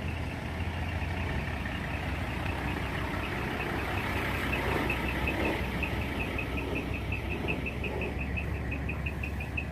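Large truck's diesel engine idling with a steady low rumble. A rapid, evenly spaced series of short high-pitched pips, about five a second, comes up over it from about halfway through.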